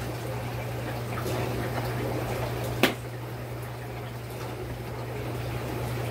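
Aquarium water bubbling and trickling over a steady low hum, with one sharp click a little before halfway through.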